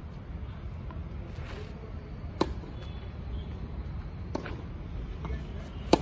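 Tennis racket striking a ball with a sharp pop near the end, the loudest sound here. Two fainter knocks come earlier, a couple of seconds apart, over a steady low rumble.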